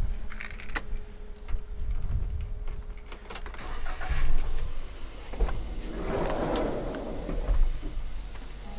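Daihatsu Gran Max minibus's sliding side door being unlatched and run open along its track: a few clicks, a loud clunk about four seconds in, then a rolling rush of the door on its rails, with a few knocks.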